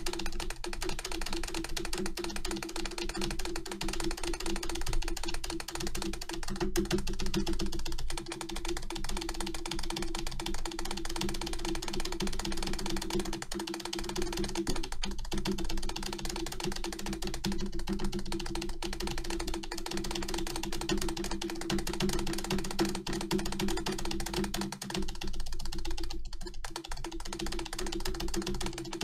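Rapid, continuous clicking of an Acer keyboard's spacebar, about seven presses a second, over a steady low hum.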